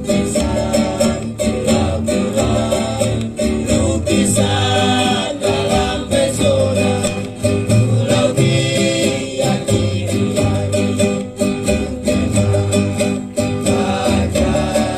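Acoustic string band playing a lively tune: fast, even strumming and plucking on guitar and ukulele-type instruments over a deep bass line.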